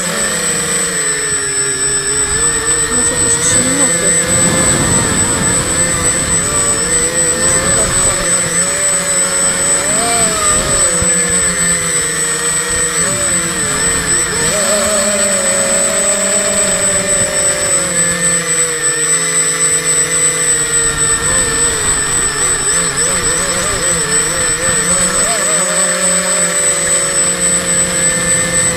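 Quadcopter's electric motors and propellers whining in flight, the pitch wavering up and down as the throttle changes, with a steady high-pitched tone above it and wind rumbling on the microphone.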